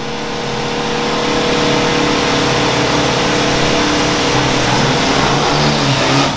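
Diesel pickup truck doing a burnout: engine held at high revs while the rear tyres spin in place on the tarmac, building over the first second and then steady until it cuts off abruptly at the end.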